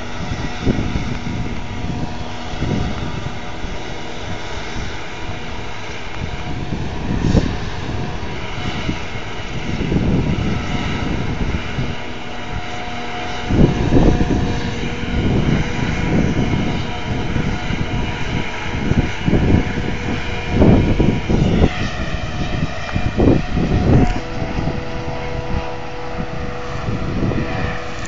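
Steady drone of silage-harvest machinery, a forage harvester and tractors running, with strong wind gusts buffeting the microphone in repeated low rumbling surges. About three quarters of the way through, the machine pitch dips briefly and recovers.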